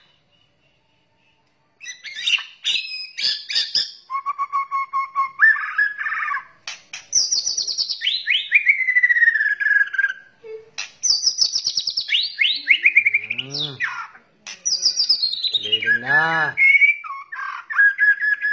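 White-rumped shama (murai batu) singing: after a short silence, a run of quick clicking notes, then loud whistles sliding down in pitch, three times over, mixed with fast trills.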